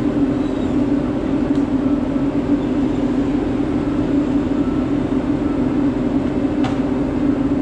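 Diesel engine of a John Deere 853 tracked feller buncher running at a steady speed, a constant low drone heard from its cab, with a couple of faint clicks.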